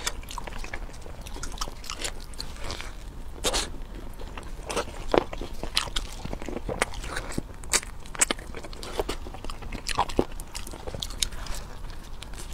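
Close-miked eating: a person biting and chewing sauce-covered food, with irregular crunches and wet mouth clicks.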